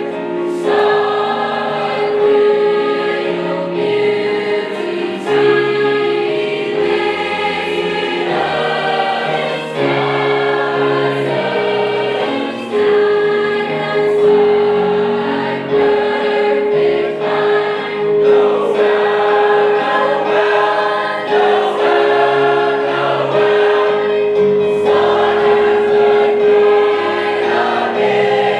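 High school choir singing a Christmas song, with one note held steadily under the other moving parts.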